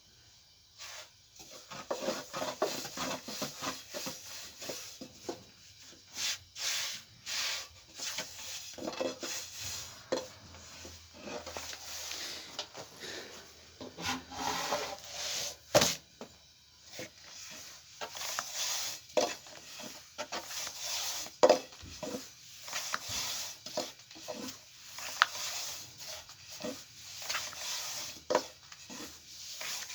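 Irregular knocks and scraping of cookware and wooden utensils being handled while preparing bread, with many short sharp knocks throughout.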